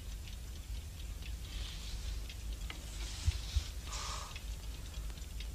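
Quiet optical soundtrack of an old black-and-white film: a steady low hum and hiss, with a few faint rustles and ticks in the middle.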